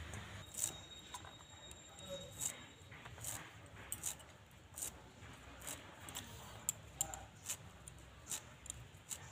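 Fresh coriander being sliced on a boti, a fixed upright curved blade: faint, crisp snips roughly once a second.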